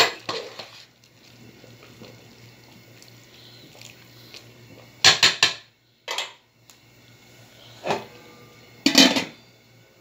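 An aluminium pot and its lid clattering against each other and against a ladle: sharp metal clanks at the start, a quick cluster about five seconds in, and more near the end as the lid goes on the pot, over a low steady hum.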